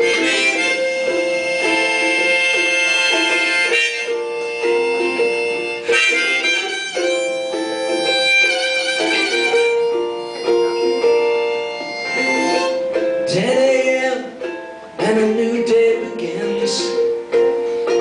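Harmonica in a neck rack playing long held chords over a strummed ukulele, live on a club stage.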